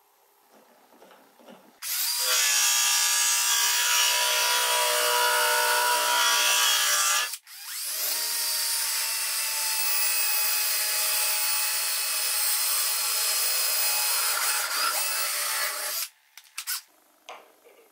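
Cordless drill running under load as it bores into wood, in two long runs with a brief stop between them.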